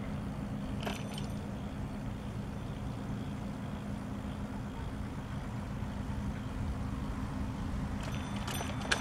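Rolling noise of a bicycle ride: a steady low rumble with a low hum, a single click about a second in, and the bike rattling over bumps near the end.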